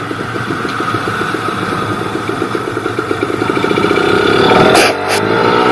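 Kawasaki Ninja 150 RR single-cylinder two-stroke engine running under way, with a mildly ported and polished cylinder and stock exhaust. Its rapid firing pulses build in loudness over the second half, drop briefly about five seconds in, then pick up again.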